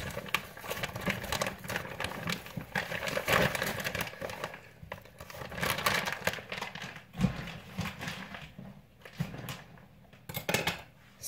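Plastic bag crinkling and rustling as a raw chicken quarter is pulled out of it by hand, with a dull thump about seven seconds in, after which the rustling thins to scattered crackles.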